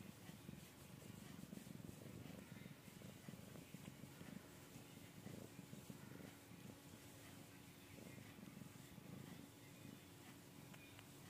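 Domestic cat purring softly, a low steady rumble that swells and eases in slow waves.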